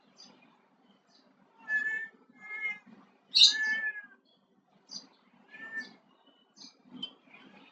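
A cat meowing four times in quick succession; the third meow is the longest and loudest. Short high chirps sound between the meows.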